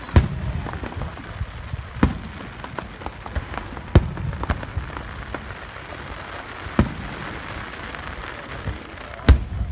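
Aerial fireworks shells bursting: five sharp booms about two seconds apart, the loudest near the end, with lighter crackles between them.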